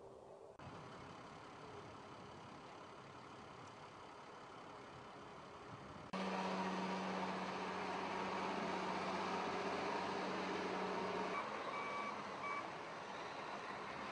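Steady engine noise. About six seconds in it cuts abruptly to a louder stretch with a steady hum, and a few short high beeps sound near the end.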